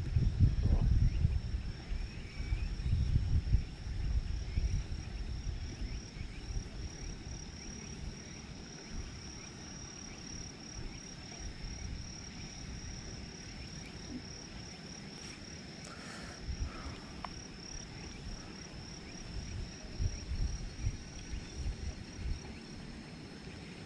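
Insects trilling steadily in a high, finely pulsed chorus, with low rumbling buffets that are strongest in the first few seconds and again near the end.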